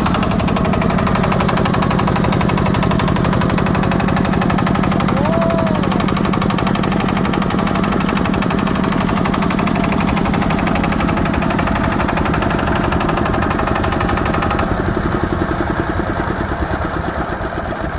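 Two small farm tractors' diesel engines, started by hand crank, running together with a steady fast chugging that turns uneven near the end.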